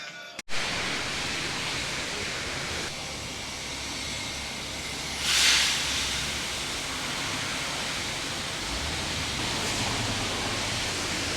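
Steady rushing noise with a brief louder whoosh about five seconds in.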